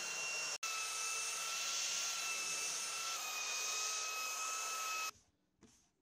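Handheld electric belt sander running steadily while sanding a wooden tabletop: a high motor whine over a hiss. It drops out for an instant near the start and cuts off suddenly about five seconds in.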